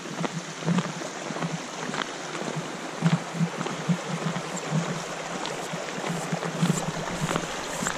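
A small creek running steadily with a constant rushing of water, and footsteps crunching in packed snow about twice a second.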